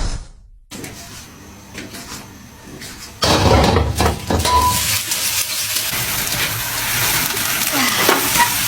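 Kitchen noise: a few clicks and knocks, then about three seconds in a loud steady hiss starts and keeps going.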